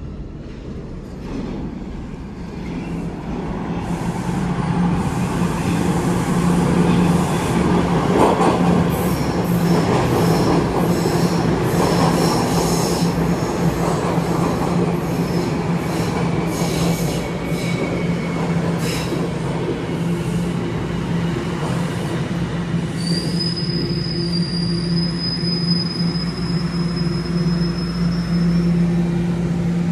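Toronto Rocket subway train arriving at an underground platform and braking to a stop: its rumble builds over the first several seconds, with a steady low hum and a run of wheel clacks as the cars pass. In the last several seconds a thin, high squeal sets in, rising slightly in pitch as the train halts.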